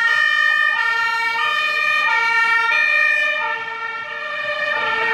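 German two-tone fire engine siren (Martinshorn) on an LF20, alternating between a high and a low tone about every two-thirds of a second. It dips briefly in level about four seconds in, then comes back up.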